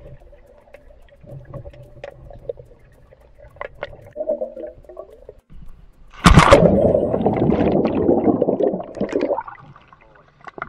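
Swimming pool heard through a submerged camera: faint bubbling and small clicks under water. About six seconds in, the camera breaks the surface and a loud splashing of water starts, lasting about three seconds before it dies down.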